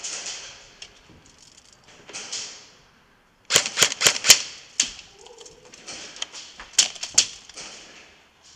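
Airsoft guns firing in sharp snapping shots: a quick string of about five shots about three and a half seconds in, one more shot half a second later, then two more near the end.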